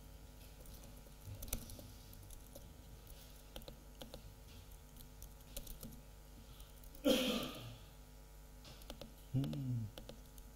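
Faint, scattered typing and clicks on a MacBook laptop keyboard. A short breathy sound, like a sigh, comes about seven seconds in, and a brief low vocal hum about a second before the end.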